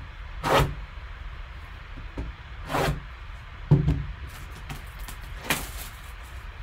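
Hands handling a sealed cardboard card box: three brief scraping rustles, roughly two to three seconds apart, with a soft knock between the second and third.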